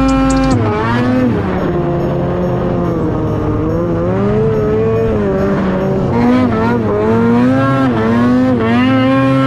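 Snowmobile engine revving up and down as the throttle is worked through deep powder, its pitch repeatedly dropping and climbing again.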